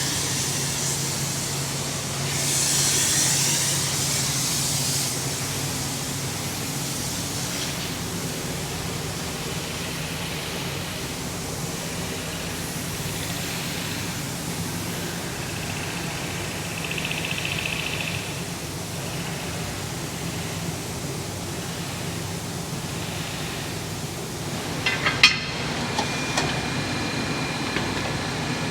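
Steady mechanical hum with a burst of hissing air about two to five seconds in, and a few sharp clicks near the end.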